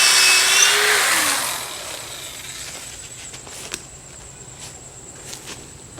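Power drill with a 7/32 bit boring a pilot hole into a wooden board; about a second in the trigger is let go and the motor winds down, falling in pitch. A few faint clicks follow.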